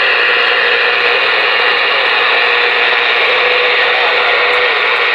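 CB radio receiver static through the radio's speaker: a loud, steady hiss of band noise, with a faint wavering whistle underneath, as the channel opens while waiting for a reply to a radio check.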